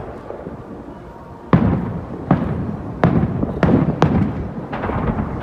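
Aerial fireworks shells bursting: six sharp bangs over about three seconds, starting a second and a half in. The first is the loudest, and each trails off in an echo. Under them runs a steady low rumble of strong wind on the microphone.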